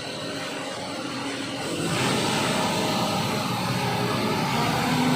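Heavy engine of a large construction vehicle or machine running steadily, growing louder about two seconds in.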